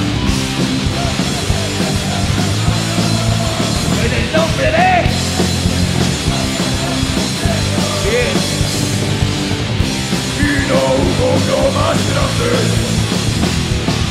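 Heavy metal band playing live: distorted electric guitar, bass guitar and a drum kit with cymbals, loud and steady.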